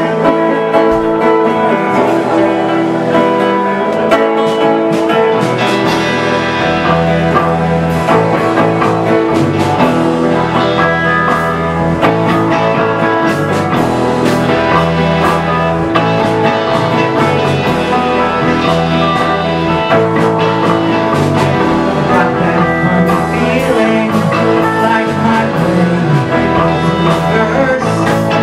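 Live band music with guitar to the fore and no clear singing, the bass end coming in fuller about six seconds in.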